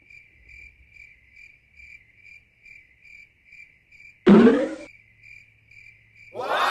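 Crickets chirping steadily, about two chirps a second. About four seconds in, a brief loud sound with several pitches cuts over them for half a second, and another loud sound with falling pitches begins near the end.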